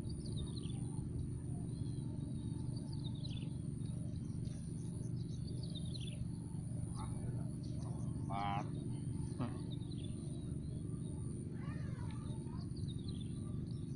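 Birds calling outdoors: several short whistled notes sliding downward, a fast warbling trill about halfway through and a looping call near the end, over a steady low background rumble and a thin constant high tone.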